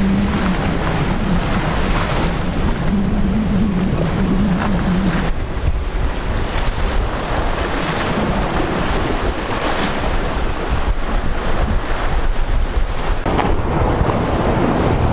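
Wind buffeting the microphone over surf washing against the jetty rocks. A low, steady hum runs underneath for the first five seconds or so, then stops.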